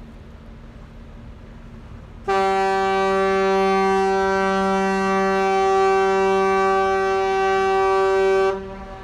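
Container ship's horn sounding one long, steady blast of about six seconds, starting about two seconds in and cutting off sharply, with a short echo trailing after. A low steady rumble sits underneath.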